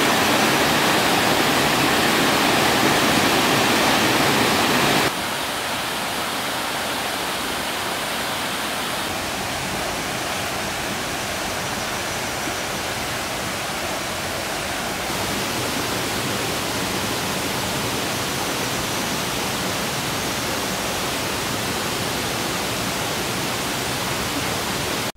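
Mountain stream rushing and cascading over granite boulders. The rush is steady, and about five seconds in it drops to a lower level.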